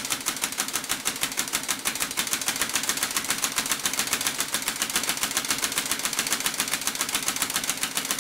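Old two-stroke chainsaw engine converted to run on compressed air, running steadily: a fast, even clatter of strokes.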